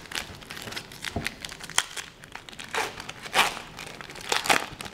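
Hockey trading-card pack wrapper crinkling and tearing as it is opened by hand. The rustles come in irregular bursts, the loudest about three seconds in and again near the end.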